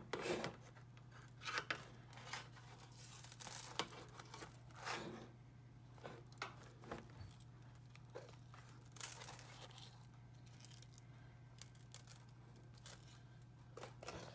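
Tongs clicking and scraping against a speckled enamel roasting pan, with soft wet handling noises as raw steaks are turned over. The clicks and scrapes are scattered and busiest in the first half, over a steady low hum.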